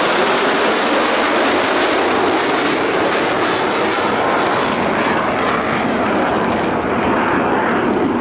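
Loud, steady roar of Blue Angels F/A-18 Super Hornet jets in flight. The high, hissing edge of the roar fades from about halfway through as the jets draw away.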